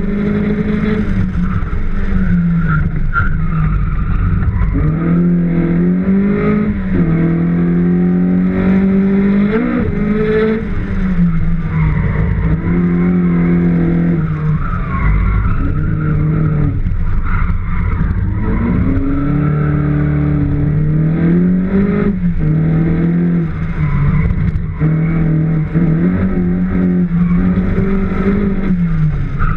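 Rally car engine driven hard, its pitch climbing and dropping again and again as it accelerates, changes gear and slows for corners, heard from a camera on the bonnet.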